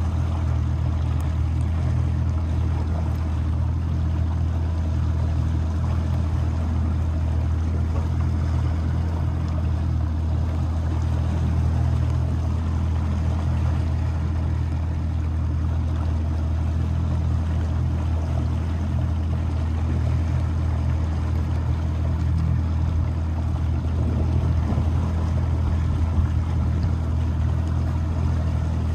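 Motorboat engine running at a steady speed, a constant low hum with water noise underneath.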